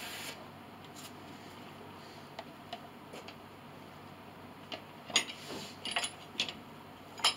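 Workshop handling noise: a few sharp clicks and knocks, the loudest about five and six seconds in and once more just before the end, over a quiet room background.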